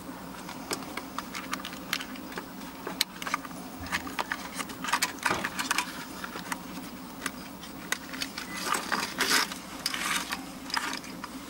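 Handling noise of wires and a steel guide wire being worked through a rubber door-harness boot: scattered small clicks and taps of wire and plastic connectors, with longer rubbing scrapes about five seconds in and again near nine to ten seconds.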